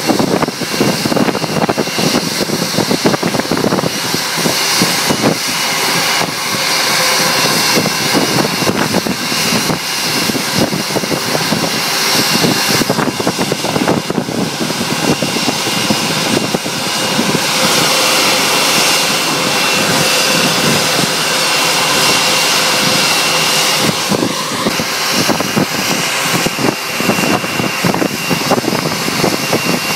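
Airbus A320's twin turbofan jet engines running at taxi idle as the airliner rolls in to the gate: a steady high whine over a broad rushing roar.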